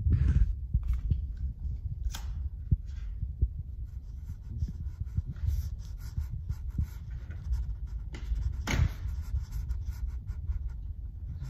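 Handling noise from a phone held against clothing: a low rumble of the microphone rubbing, with scattered scratches and clicks and one sharper scrape about nine seconds in.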